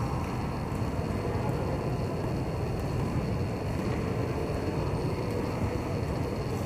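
Roller hockey skates, their wheels rolling on the rink floor, making a steady low rumble with no distinct impacts.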